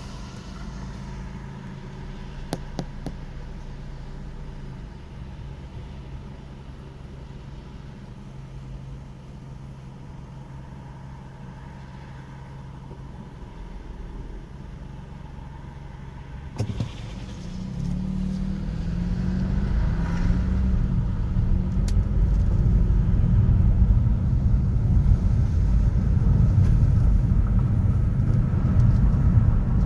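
City street traffic. A low, steady engine hum runs for the first half, then about eighteen seconds in a much louder low rumble builds as heavy traffic or a large vehicle draws close, and it stays loud.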